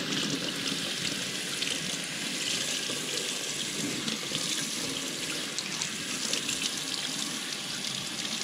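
Kitchen faucet running steadily onto a gutted trout held in the stream, water splashing off the fish into a stainless steel sink as it is rinsed out after gutting.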